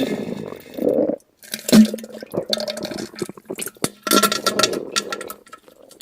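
Diarrhea sound effect: wet, sputtering splatters in several irregular bursts, with a brief break a little over a second in, fading near the end.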